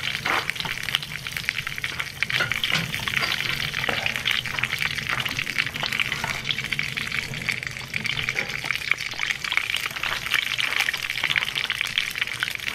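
Oiled river stones sizzling in a hot cast-iron cauldron: a steady hiss with many small crackles, made by the water left on the stones after washing.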